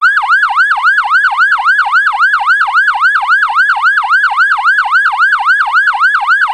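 Electronic alarm sound effect: a loud, fast warbling siren-like tone whose pitch dips and springs back up about four times a second.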